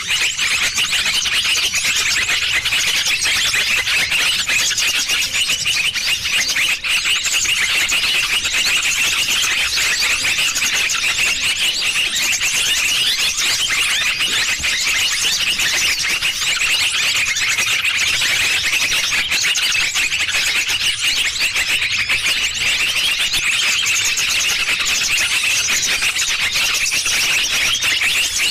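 Dense, unbroken chatter of many small birds' rapid high-pitched chirps and trills, a pikat lure call for trapping small songbirds.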